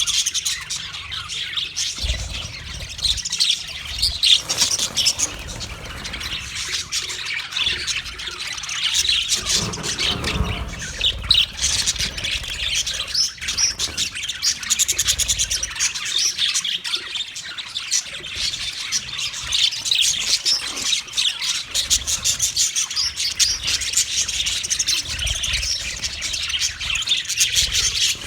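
Budgerigars chirping continuously, a dense run of quick high chirps and squawks.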